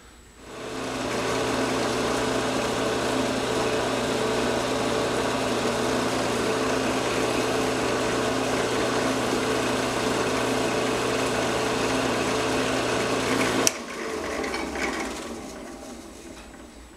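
Drill press motor spinning up and running steadily while a sharpened music-wire bit drills through a small block of wood. A sharp click about three-quarters of the way through, after which the motor spins down and fades.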